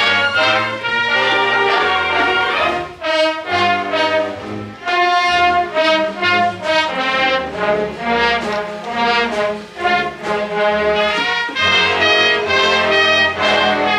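Junior high school symphonic orchestra playing a medley of Disney film music, with brass to the fore.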